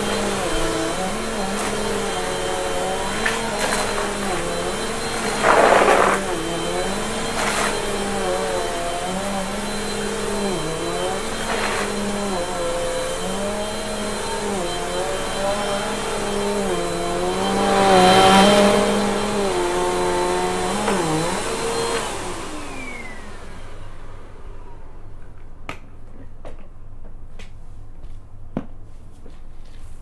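Upright vacuum cleaner running on carpet, its motor pitch wavering with each push-and-pull stroke, with two brief louder surges. Some twenty seconds in it is switched off and winds down, leaving a few light clicks.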